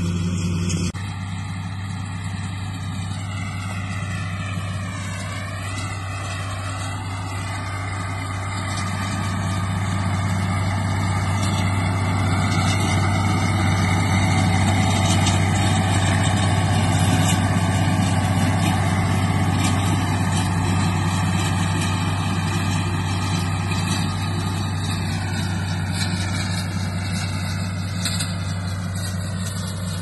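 Allis-Chalmers 185 diesel tractor engine running steadily under load as it pulls a hay mower-conditioner, its pitch wavering slightly. It grows louder about a third of the way in as the tractor comes closer, then eases off.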